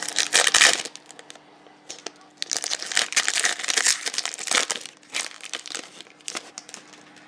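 Trading-card pack wrapper crinkling in irregular bursts as a pack of basketball cards is opened and handled.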